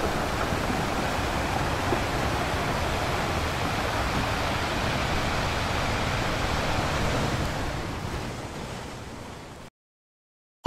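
Steady rush of ocean surf washing onto a sandy beach. It fades out near the end and stops abruptly.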